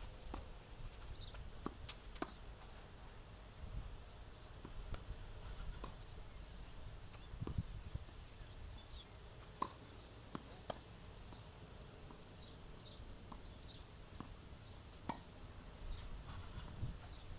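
Faint tennis court sounds: scattered sharp knocks of tennis balls bouncing and being hit, over a low wind rumble on the microphone, with short high chirps from birds.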